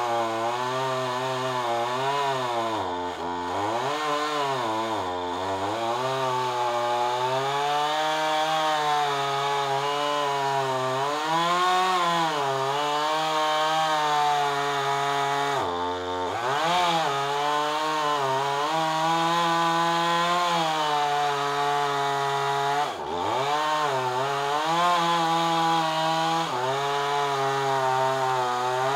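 Two-stroke chainsaw held at high revs while cutting through a thick limb, its engine note wavering as the chain bites into the wood. The revs drop briefly and pick back up four times, about 3, 5, 16 and 23 seconds in.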